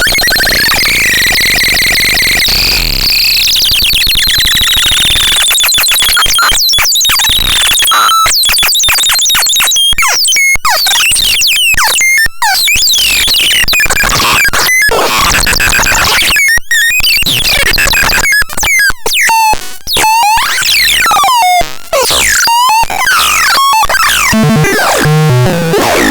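Electronic synthesizer making harsh, noisy sweeping tones that fall in pitch, then from a few seconds in breaking into rapid stuttering fragments with sudden cut-outs and short pitch glides.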